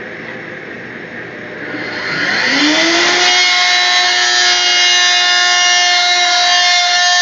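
A table-mounted router is switched on about two seconds in, its motor winding up over about a second to a steady high whine, then running at full speed while a strip of wood is fed along the fence past the bit. Before it starts, a steady noise of the dust-extraction vacuum can be heard.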